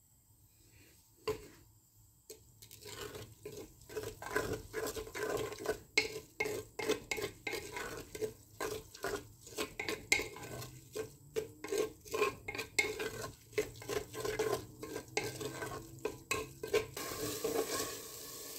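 A spatula stirring and scraping chopped onions in oil inside a clay pot, in short, even strokes at about two a second after a quiet start. Near the end the strokes stop and a steady hiss takes over.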